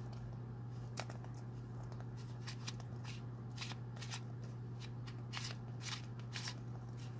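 Fingers gripping and twisting the plastic shell of a Sphero Mini robotic ball to open it: irregular small clicks and scrapes of skin and plastic, over a steady low hum.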